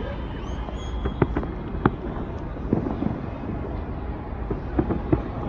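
Fireworks bursting: a handful of sharp pops at irregular intervals over a steady low rumble.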